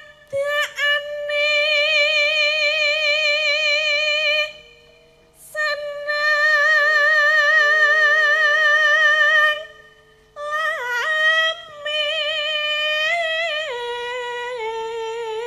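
A sinden, a female Javanese singer, singing a tembang solo: three long phrases of held notes with a wide, wavering vibrato, stepping down in pitch in the last phrase.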